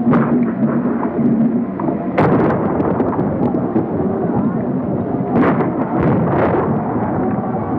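Musket fire and a continuous rumbling battle din, with a sharp report about two seconds in and three more in quick succession between about five and a half and six and a half seconds in.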